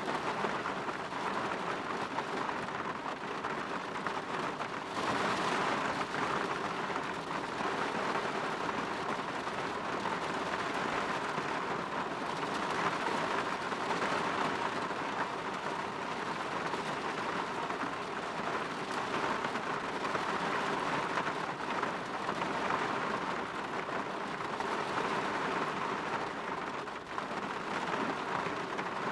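Steady rain falling and pattering on a window pane, a dense even patter that swells slightly now and then.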